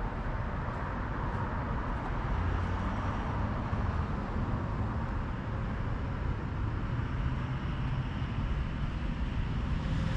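Steady low rumbling noise with no distinct events, of the kind made by road traffic or a running vehicle.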